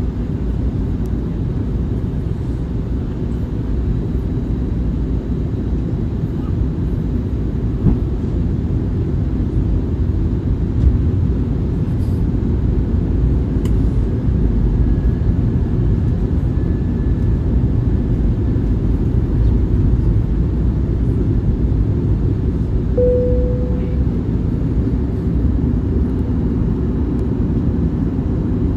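Inside the cabin of an Airbus A321neo on its descent: the steady low rumble of its Pratt & Whitney geared-turbofan engines and the airflow over the fuselage. A short single tone sounds about two-thirds of the way through and fades within a second.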